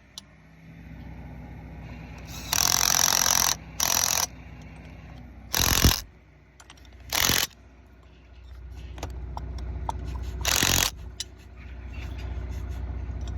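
A cordless impact wrench tightening the stuffing box's flange bolts in five short bursts. The first burst lasts about a second and the later ones are briefer. A steady low rumble runs underneath and grows louder in the second half.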